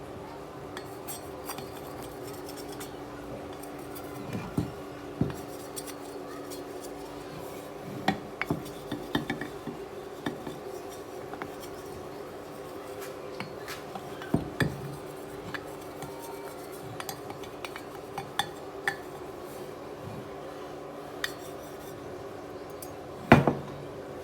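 Irregular sharp metallic clinks and taps, about twenty of them with the loudest near the end, over a steady low hum.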